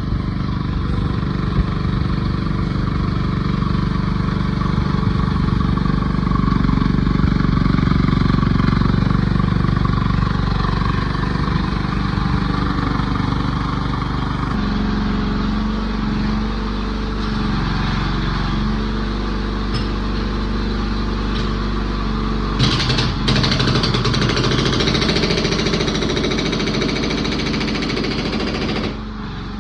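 Excavator engine running steadily while its hydraulic breaker works, breaking ground. The sound turns harsher and louder about 23 s in and drops back just before the end.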